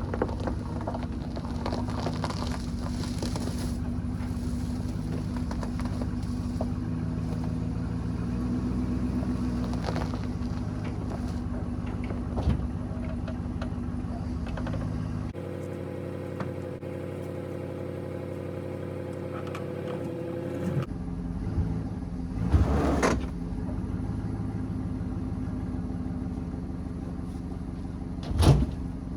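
A motor vehicle engine running steadily at idle, with its low hum dropping away for about five seconds midway and a few short knocks late on.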